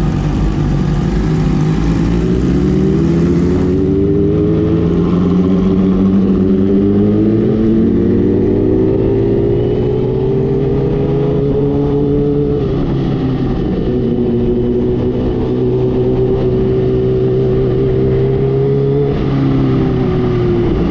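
Kawasaki Ninja H2's supercharged inline-four engine pulling away and accelerating, its pitch climbing over the first several seconds, then holding at a steady cruise with a drop in pitch twice as the rider shifts or eases off. Wind noise runs underneath.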